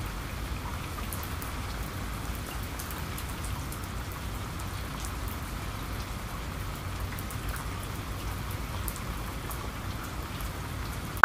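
Steady rain falling on tree foliage, an even hiss with scattered sharp drop sounds, cutting off suddenly with a brief click at the very end.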